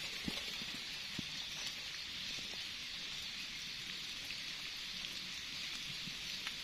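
Steady high-pitched hiss of a forest insect chorus, with a few faint ticks.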